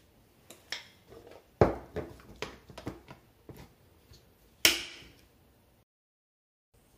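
Objects being set down and handled on a wooden counter beside a pour-over coffee setup: a run of light knocks and clicks, with a sharp knock about one and a half seconds in and a ringing clink about two-thirds of the way through.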